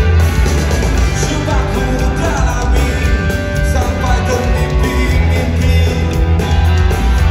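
Live rock band playing loudly through a PA system, with distorted electric guitars, bass, drums and a male lead vocalist singing. The heavy, bass-laden sound is picked up by a phone microphone from within the crowd.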